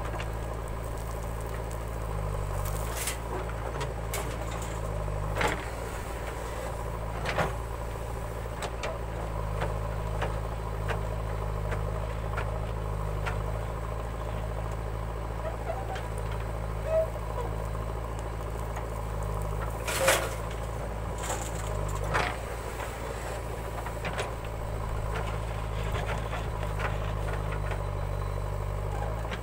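JCB backhoe loader's diesel engine running steadily while its rear arm digs soil, the engine note shifting several times as it works. A few sharp knocks stand out, the loudest about two-thirds of the way through.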